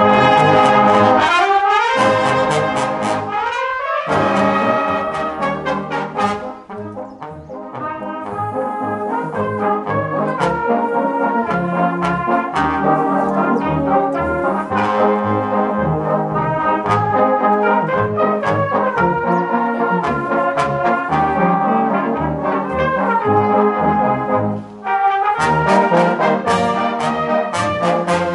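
Brass band playing a piece together: trumpet-type horns over euphoniums and tubas, full and loud, with a brief break about 25 seconds in before the band comes back in.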